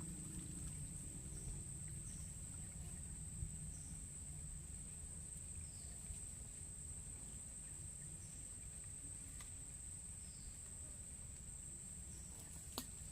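Insects giving a steady, high-pitched, unbroken drone, over a low background rumble, with a few faint short chirps and one sharp click near the end.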